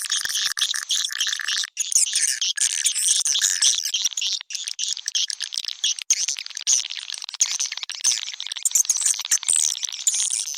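Swiftlet lure-call recording: a dense, continuous mass of high twittering swiftlet chirps, broken by a few brief dropouts where the recording is looped or cut. It is the kind of calling sound played in swiftlet houses to attract edible-nest swiftlets to roost and nest.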